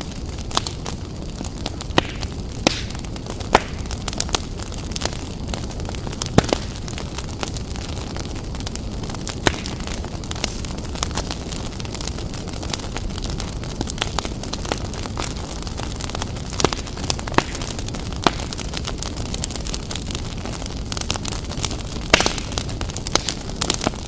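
Crackling bonfire: a steady low rumble of burning with frequent sharp, irregular pops and snaps of wood. This is a dubbed-in bonfire recording; the steam fireplace itself is silent.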